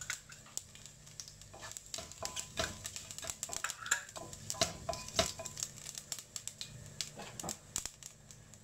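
Mustard and cumin seeds spluttering in hot oil in a stainless steel pot: irregular sharp pops and crackles, the sign that the oil is hot enough for tempering. About halfway through, a spoon stirs the seeds and scrapes the pot's base.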